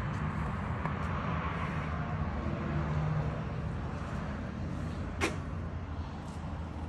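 A motor running steadily as a low hum under a rushing noise, with one sharp click about five seconds in.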